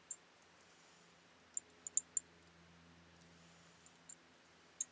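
Short, light metallic clicks from handling a Brevete Reform .25 ACP pocket pistol, with a small cluster about two seconds in and more near the end. No shot is fired.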